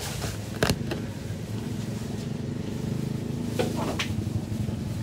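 A small engine running steadily at a low idle, with one sharp knock about a second in.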